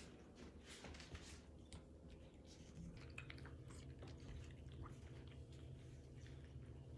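Two cats eating from glass bowls, faint chewing and crunching with small irregular clicks, over a low steady hum.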